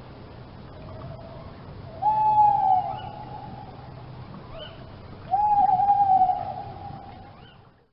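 A bird giving two long, slightly falling calls, each about a second long, one about two seconds in and one about five seconds in, over faint short higher chirps and a low steady background hum.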